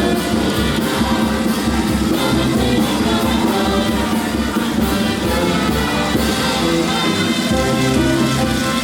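Marinera norteña music playing for couple dancing, with a steady beat and many instruments sounding together.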